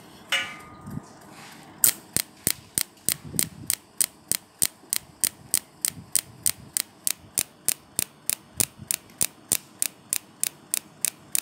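Automatic trigger-pressing machine clicking the trigger over and over in pulse mode, sharp evenly spaced clicks at about three or four a second starting about two seconds in. A short tone sounds just before the clicking begins.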